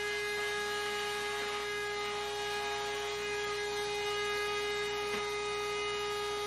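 Porter-Cable 690 router in a router table spinning freely at full speed, not cutting: a steady, unchanging whine.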